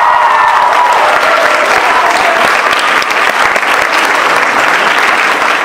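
Audience and cast applauding, with cheers over the first couple of seconds.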